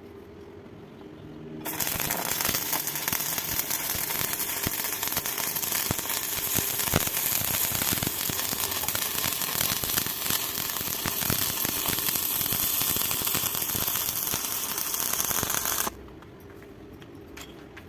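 Stick (arc) welding: the electric arc crackling and sizzling steadily as a bead is run, starting abruptly about two seconds in and cutting off suddenly when the arc is broken near the end.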